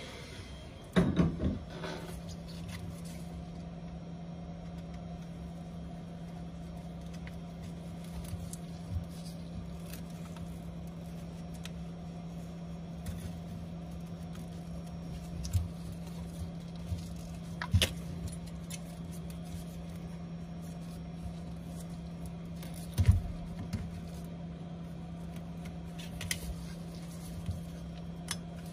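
Small clicks and taps of metal and plastic repair tools against a phone's glass back and frame as it is worked open, over a steady low hum. The loudest knocks come about a second in and again near the end.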